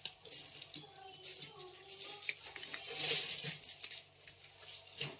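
Two cats eating dry kibble from their bowls: quick, irregular crunching and clicking, busiest about three seconds in.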